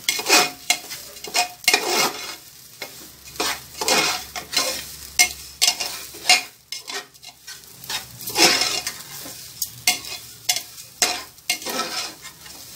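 Rice frying in oil in an open aluminium pressure cooker, stirred with a utensil. Irregular scrapes against the pot come about one or two a second over a sizzle.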